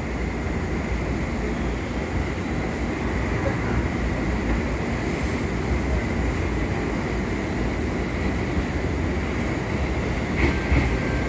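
A train moving along the station tracks: a steady rumble of wheels and running gear with a faint high whine over it, and a few sharp clacks about ten seconds in.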